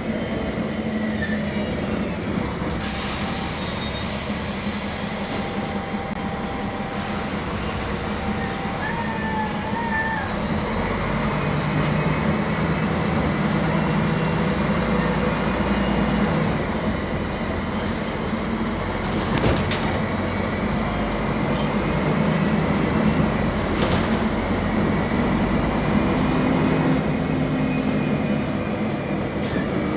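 Mercedes-Benz OM-457 LA six-cylinder diesel of an O-500 MA articulated city bus running under way, its note rising around a dozen seconds in. A loud hiss of air about three seconds in, and a few short squeals a little later.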